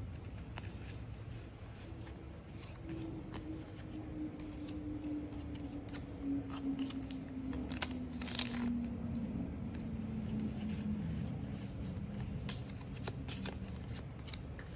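Yu-Gi-Oh trading cards being handled and flipped through, with light rustling and scattered clicks of card stock. A faint low tone slowly drops in pitch through the middle.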